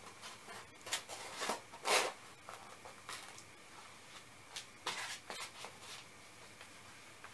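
Hands handling a cardboard shipping box and paper packing materials: scattered rustles, crinkles and scrapes, loudest about two seconds in and again around five seconds.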